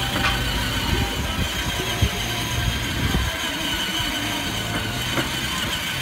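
Battery-powered ride-on toy jeep driving, its hard plastic wheels rumbling and clattering over concrete, with a sharp click about two seconds in; the low rumble eases off about halfway.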